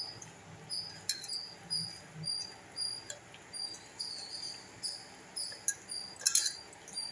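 A cricket chirping steadily in short, high chirps, about two a second. A few sharp clinks, the loudest about six seconds in, and soft sounds of hands working damp dough in a steel bowl.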